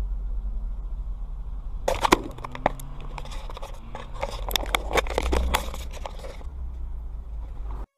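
Low rumble of a moving car's cabin, with a run of sharp, irregular clicks and knocks from about two to six seconds in as the dashcam is taken off its mount and handled.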